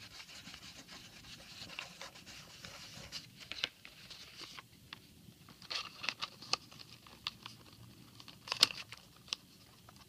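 Glue stick rubbed over paper and a paper roof pressed onto a cardboard milk carton: a soft rubbing hiss for the first few seconds, then scattered light taps and clicks of paper and card being handled, with one sharper click near the end.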